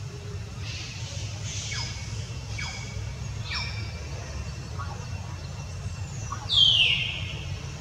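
High-pitched squeals of a young long-tailed macaque: a few short calls falling in pitch, then a louder, longer falling squeal near the end, over a steady low rumble.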